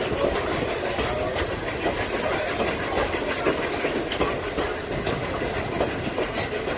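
Steam locomotive 3716, a 2-8-0, working up a 2.2% grade, heard from aboard the train. Its exhaust stack talk mixes with the steady rumble and clatter of the coaches' wheels on the rails.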